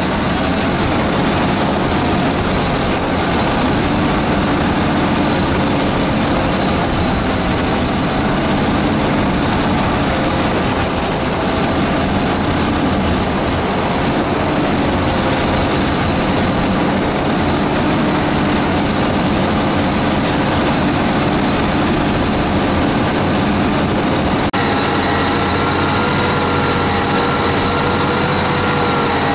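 John Deere 8320R tractor's six-cylinder diesel running steadily while the tractor drives over tilled ground, heard up close from low on the tractor's body, with heavy rumble and rushing noise mixed in. About 24 seconds in there is an abrupt switch to a different, steadier engine tone.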